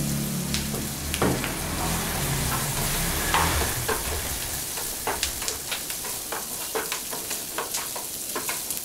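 Diced smoked beef, onion and carrot sizzling in margarine in a frying pan, stirred with a spatula: a steady hiss with frequent clicks and scrapes of the spatula against the pan, more of them in the second half.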